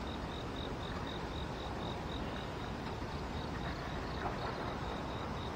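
A calling insect chirping steadily: a high, thin note pulsing about four times a second over a low, steady background rumble.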